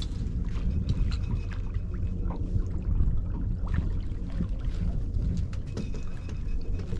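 Low steady rumble of a small fishing boat under way at trolling speed, with wind on the microphone, and a few scattered splashes and clicks as a hooked catfish thrashes at the surface beside the boat.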